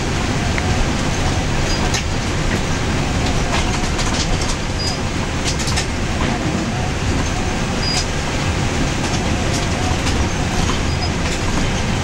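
Steady road noise inside a vehicle's cab driving a wet, rough road: a low rumble of engine and tyres, with scattered small rattles and clicks.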